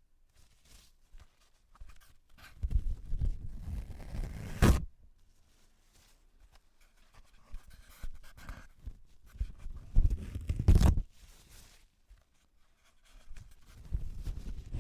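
Toilet paper pulled off a roll and torn, close to the microphone: rustling pulls that each end in a sharp rip, twice, with a third pull starting near the end.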